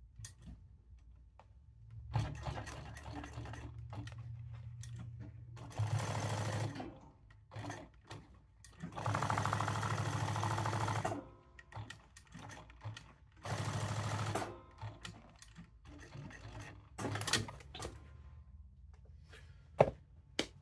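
Jack S5 post-bed sewing machine stitching a leather patch onto a hat. After a quiet start it runs steadily at a lower level, then comes three louder bursts of stitching with short pauses between as the hat is turned. A few sharp clicks follow near the end.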